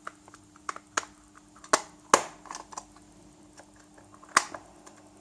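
Irregular sharp clicks and taps of small plastic flashlight parts being handled and fitted together, with a few louder knocks among lighter ticks.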